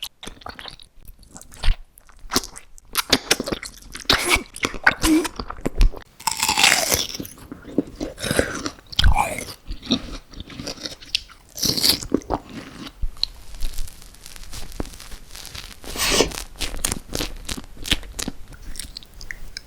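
Close-miked eating: repeated crisp bites and crunchy chewing, with many sharp crackling strokes and a few longer, wetter chewing passages.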